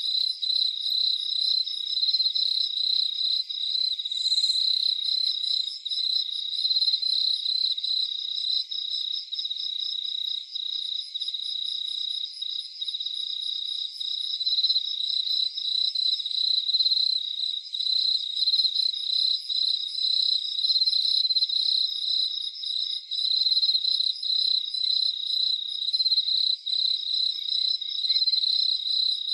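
Night chorus of crickets chirping steadily in fast pulses, with a fainter, higher-pitched insect trill that drops in and out.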